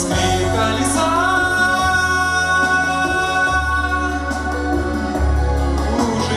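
A song performed with singing over an instrumental backing with a steady bass line; a long note is held from about a second in.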